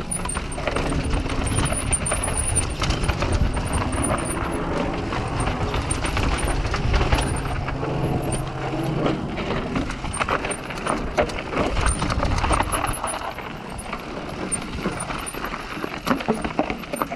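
Mountain bike riding fast down a rocky trail: knobby tyres crunching and rolling over rock and dirt, with frequent knocks and rattles from the bike as it hits bumps, and wind rushing across the microphone.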